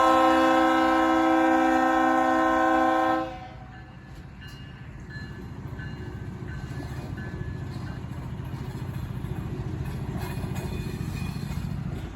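BNSF Dash 8-40BW locomotive sounding its multi-note air horn, which cuts off about three seconds in. Afterwards the locomotive's diesel engine drones low and steady, slowly growing louder as it moves along the track.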